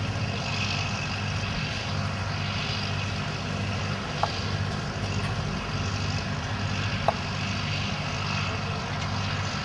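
Tractor engine running steadily at a constant speed, with two short clicks about four and seven seconds in.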